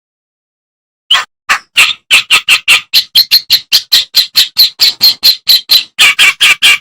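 Kerak basi, a reed warbler, singing a fast run of short, harsh, chattering notes, about five a second, that starts about a second in after dead silence.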